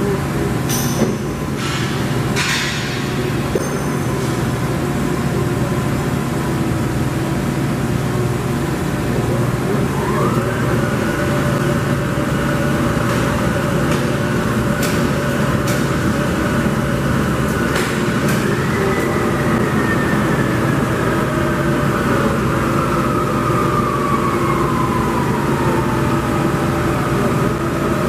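Motch twin-spindle CNC vertical turret lathe running with a steady hum and a motor whine that rises about ten seconds in, rises again a little later, then falls slowly toward the end as the spindle speeds up and slows down. A few clicks sound in the first seconds.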